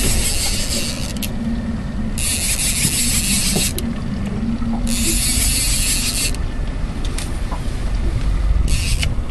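Baitcasting reel whirring in four spells of about a second and a half each, with short pauses between, as a hooked spring chinook salmon is reeled in on a bent rod. A steady low rumble runs underneath.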